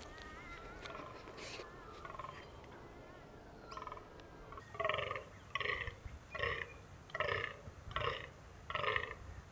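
A rutting fallow buck croaking: six short calls in an even rhythm, a little under a second apart, starting about halfway through. Faint birdsong can be heard before the calls.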